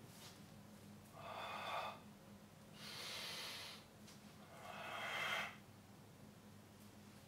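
A man breathing deeply and audibly, in time with a balance exercise on a Swiss ball: three breaths of about a second each, the middle one a sharper hiss.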